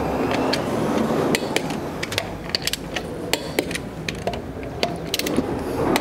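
Ratcheting torque wrench tightening a car's alloy-wheel bolts: sharp, irregular clicks of the ratchet, a few a second, as the wrench is worked back and forth.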